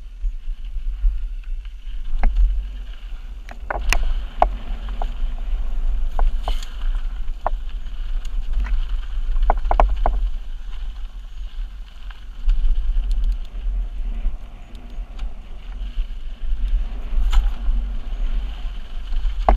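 Mountain bike ridden fast down a rough dirt singletrack: a heavy low rumble of wind and riding noise on the microphone, with scattered sharp clicks and knocks of the bike rattling over bumps, bunched about four seconds in and again around ten seconds.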